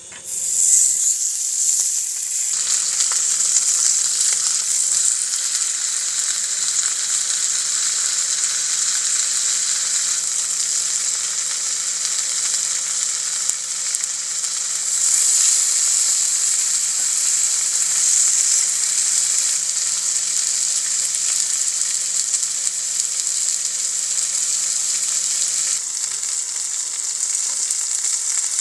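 Pork belly slices sizzling on a hot griddle plate. The sizzle jumps up sharply about a second in, as the meat meets the plate, and then carries on as a steady, loud frying hiss.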